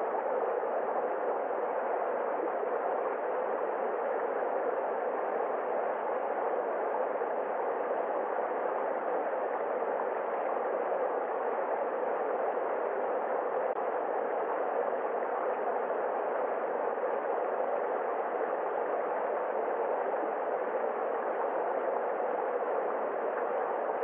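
Small stream cascading over rocks: a steady, unbroken rush of water, sounding dull, with its highest and lowest tones cut away.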